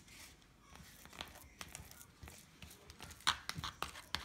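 Thin aluminium foil loaf pan crinkling and a wooden spoon scraping and pressing as raw meatloaf mix is packed into it: scattered small clicks and crackles that come thicker and louder near the end.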